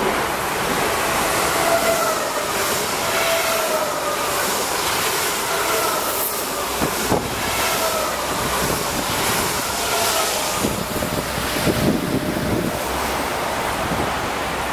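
Two coupled NSB class 74 Stadler FLIRT electric multiple units running past the platform: a steady rush of wheels and air with a motor whine that falls in pitch several times as the cars go by, and a couple of sharp rail clicks about halfway through.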